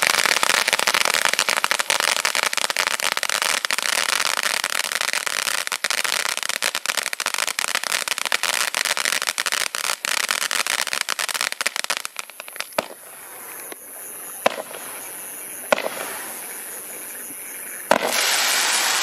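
Consumer fireworks being fired: dense crackling for the first twelve seconds or so, then a quieter stretch broken by a few single sharp reports. Near the end comes a loud hissing rush.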